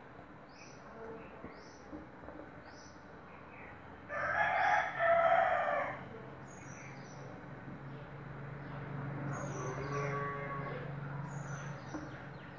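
A rooster crows once, about four seconds in, for about two seconds. A small bird chirps repeatedly in short, high notes throughout.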